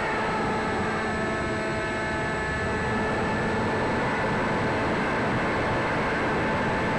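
Wind rushing over a small RC model plane in flight, heard from its onboard camera, with a steady whine from the plane's electric motor.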